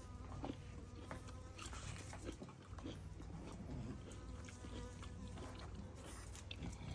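A bee buzzing around in flight: a faint, steady drone with a few short clicks.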